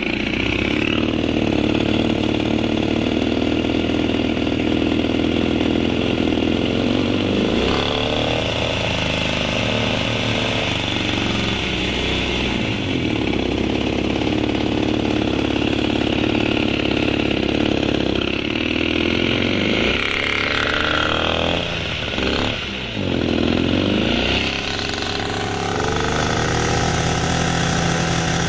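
Rebuilt 70cc two-stroke scooter engine on its first run, racing at high revs instead of idling; the revs sag and climb back several times. The uploader suspects a serious air leak.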